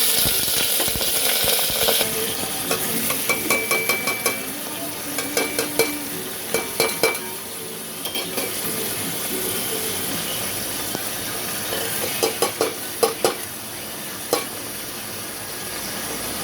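Beef sizzling in hot oil in a cooking pot, loudest in the first couple of seconds, while a spoon stirs it, scraping and clicking against the pot in two bouts.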